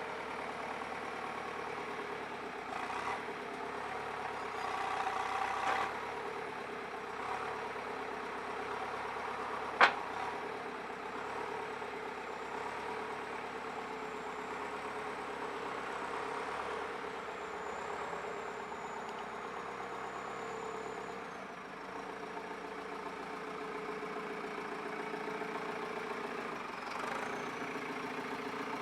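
JCB 3CX backhoe loader's diesel engine idling steadily, with a single sharp click partway through.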